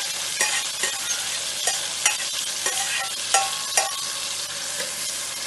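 Chopped onion, tomato and sweet pepper sizzling in hot oil in a metal pot while a spoon stirs them, with a few sharp metal clinks of the spoon that ring briefly.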